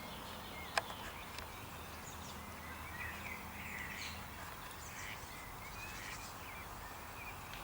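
Faint, high bird chirps scattered over quiet outdoor ambience, with a single sharp click just under a second in.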